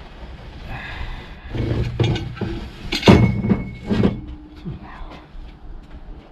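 Hand tools knocking and clanking against metal parts of an engine while a wrench works at a seized thermostat-housing bolt. A handful of sharp knocks come loudest about three seconds in, and one leaves a short metallic ring.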